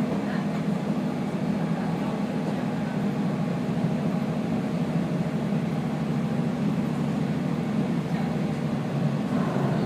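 Kazekko diesel railcar running along the line: a steady low drone with even rail and running noise.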